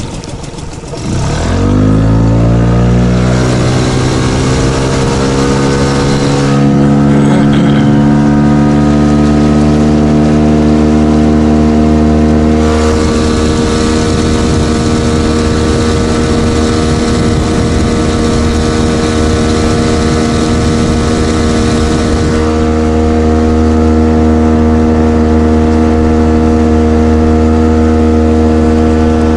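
Small outboard motor on an inflatable boat throttling up from idle, its pitch climbing over the first few seconds, then running steadily at speed under way.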